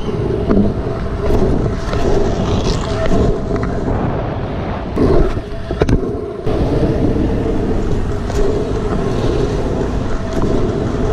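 Pro scooter's small hard wheels rolling fast over city pavement and asphalt: a steady, loud rumble that dips briefly about six seconds in, with wind on the microphone and street traffic around it.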